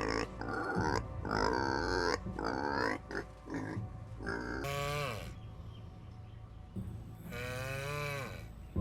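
Young farm animal calling: a quick run of short calls, then two longer wavering cries, about five and eight seconds in.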